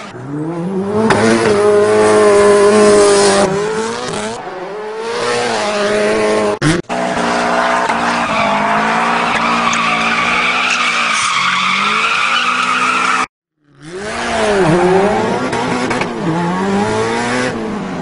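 Sound effects of a racing car: an engine revving up and down with screeching tyres, spliced in several pieces with abrupt cuts and a brief dropout.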